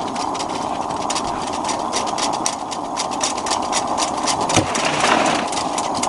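Pressurized Coleman Peak 1 gasoline lantern burning with a steady hiss, its tank freshly pumped up, with many sharp irregular crackles over it.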